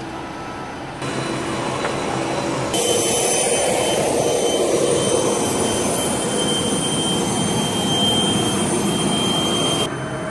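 Cessna Citation XLS's Pratt & Whitney Canada PW545 turbofan running at ground idle just after start: a steady jet rush with a thin high whine. The sound steps louder about a second in and again near three seconds, then drops back near the end.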